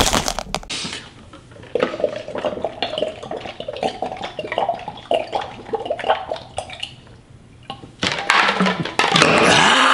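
A drink being chugged from an upturned tumbler: liquid glugging and gulped in quick, uneven bubbly pulses for several seconds. A loud burst of noise fills the first moment, and a louder rush of noise comes near the end.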